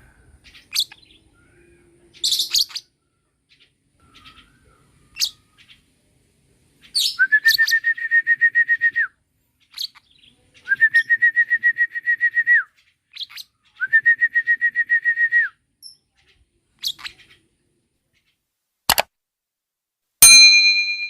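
Lovebird chirping: scattered short, sharp chirps and three runs of rapid, evenly repeated notes at one steady high pitch, each about two seconds long. Near the end comes a loud bell-like ding that rings on.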